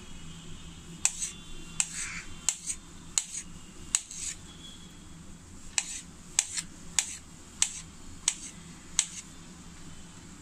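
Kitchen knife slicing through a peeled kiwi, the blade clicking sharply against the plate with each cut, about a dozen taps in two runs with a short pause in the middle.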